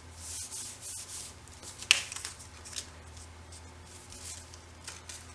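Paper and cardstock being handled and rubbed: several short swishes, with a sharp click about two seconds in and a few lighter ticks after.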